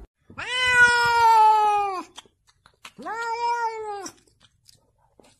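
A domestic cat giving two long, drawn-out meows, the first lasting about two seconds and the second about one, each held at a fairly steady pitch.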